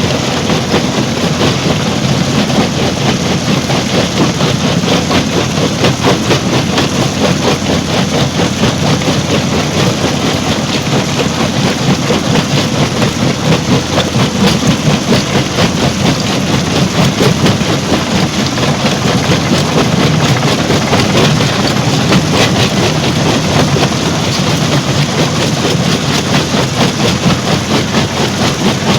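Stone crusher plant machinery running: a loud, steady mechanical din with fast, continuous rattling and a low rumble underneath.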